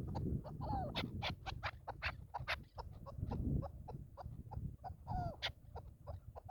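Chukar partridge calling: an irregular run of short, sharp clucking notes, several a second, with a few falling notes among them. A low rumble runs underneath.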